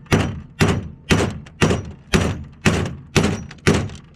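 Steady hammer blows on the seized, torch-heated tie rod of a 1995 Chevy 1500's steering linkage, struck to break it loose. About two sharp metal-on-metal strikes a second, eight or nine in all, each ringing briefly.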